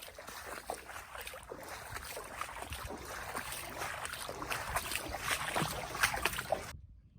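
Floodwater splashing and sloshing in a dense run of small, uneven splashes. It grows louder, then cuts off abruptly near the end.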